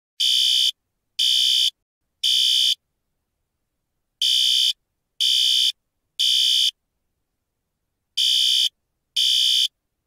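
Code 3 (temporal-three) fire alarm evacuation tone. Loud, harsh electronic beeps about half a second long come in groups of three, a second apart, with a pause of about one and a half seconds between groups. Two full groups play, then the first two beeps of a third, signalling a fire evacuation.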